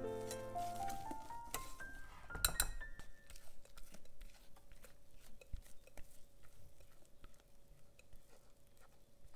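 Soft background music, a rising run of notes, fades out about three seconds in. A sharp clink of a metal whisk against a glass mixing bowl comes just before the music ends, followed by faint scattered taps and scrapes of the whisk in the glass bowl as thick batter is poured out.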